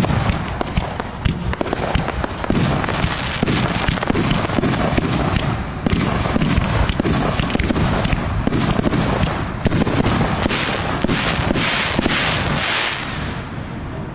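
Aerial fireworks shells bursting in quick succession: a continuous barrage of bangs and crackle, thinning slightly near the end.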